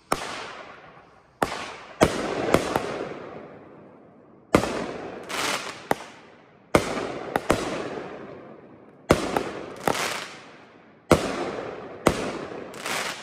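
Kripton (Pyro Diablo) 'Big Shark' 9-shot, 200-gram consumer firework cake firing. A string of sharp bangs comes about one every second or two, some in quick pairs, and each trails off in a long fading rumble.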